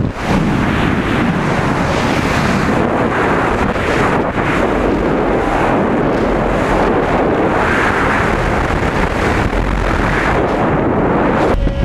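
Freefall wind rushing over a GoPro's microphone during a tandem skydive: a loud, steady rush.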